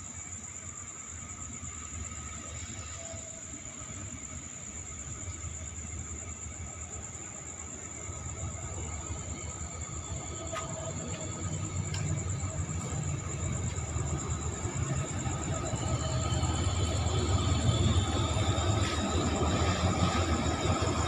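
Hitachi diesel-electric locomotive No. 4504 approaching at the head of a train, its low rumble growing steadily louder from about eight seconds in.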